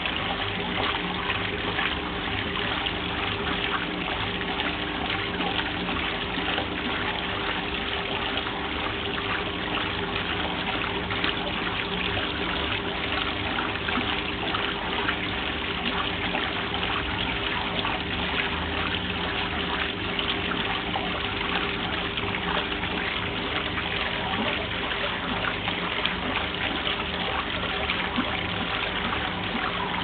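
1971 Simpson Fluid Drive top-loading washing machine agitating a load: water churning and sloshing in the tub over a steady hum.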